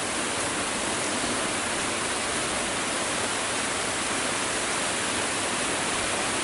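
Heavy rain pouring down in a steady, even hiss with no let-up.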